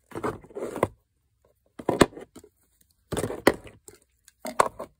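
Cosmetic boxes, tubes and bottles being handled and set down into a crowded drawer: several short bursts of rustling and scraping, with a sharp clack about two seconds in.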